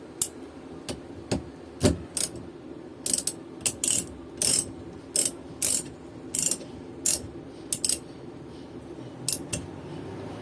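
Ratchet wrench with a 19 mm socket being worked back and forth on the steering-shaft nut, the pawl clicking in repeated short bursts, roughly one or two a second.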